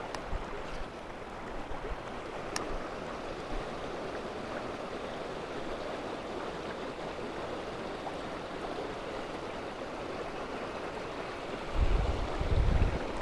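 River water rushing over rocks in shallow rapids, a steady even noise. Near the end a louder low rumble comes onto the microphone.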